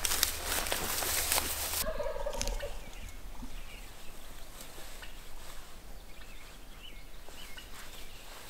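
A wild turkey gobbler gobbles once, about two seconds in, just after a rush of noise cuts off abruptly. Faint chirps follow.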